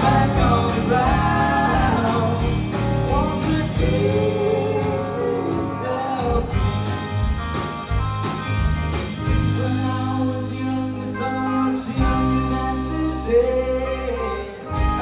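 Live rock band playing electric guitars, bass guitar and drums, with several voices singing together.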